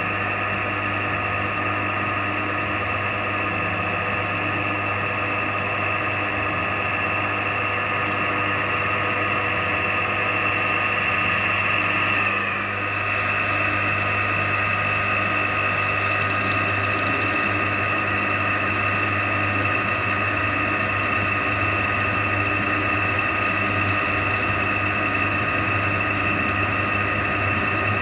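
Machine tool running steadily while drilling the hinge screw holes, with a brief dip in level and pitch about halfway through.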